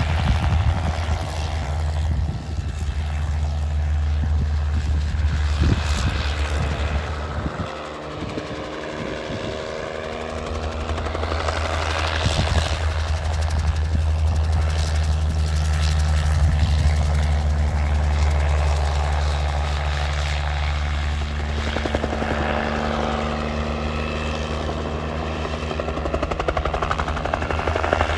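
A small single-seat, open-frame helicopter flying low overhead, its engine and rotor making a steady, deep throbbing. The sound swells and fades as it passes, dropping briefly about eight seconds in before building again.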